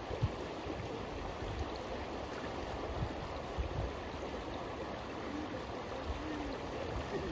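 River water rushing steadily past the bank, with a few brief low bumps.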